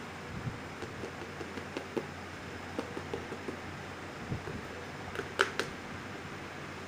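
Corrugated cardboard box being handled and folded by hand: scattered soft taps, scrapes and knocks of the cardboard, loudest in a short cluster about five seconds in, over a steady fan hum.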